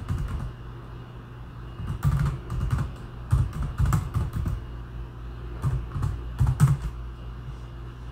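Typing on a computer keyboard: quick runs of keystrokes in several short bursts, with pauses of a second or so between them, over a steady low hum.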